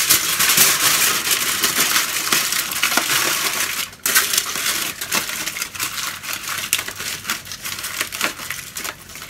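Aluminium foil crinkling as it is crumpled and pressed by hand around a raw pig's ear, with a brief break about four seconds in.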